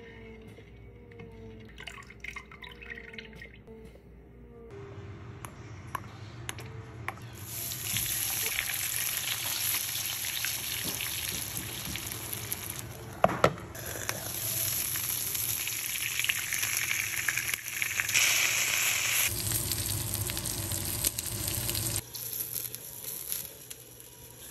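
Oil sizzling as batter and shrimp fry in the hot, oiled wells of an aebleskiver pan for banh khot, an even hiss that starts about a third of the way in and runs until near the end, with one sharp knock in the middle. Before it, quieter scraping of a spatula stirring batter in a glass bowl.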